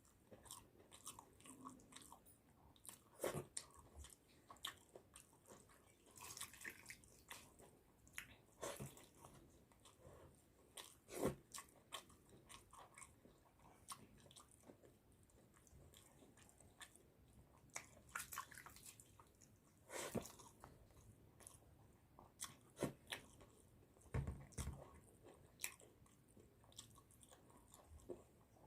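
A person eating a meal of pakhala (watered rice) and fried bhaja: faint, irregular chewing, crunching and mouth smacks.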